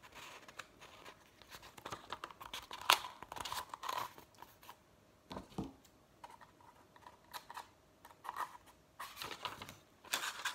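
Paper rustling as a sheet is handled and rolled, then scissors snipping through the paper near the end.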